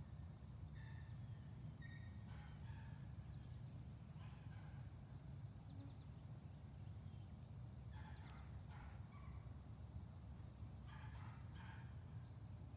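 Faint outdoor ambience: a steady high-pitched insect drone over a low rumble, with short bird calls coming in clusters several times.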